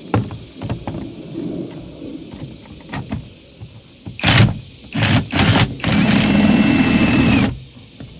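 Cordless 20V impact driver turning a scissor jack's screw through an adapter and raising the jack. After some clatter of the tool and jack being set up, it gives a few short trigger bursts, then runs steadily for about a second and a half and stops.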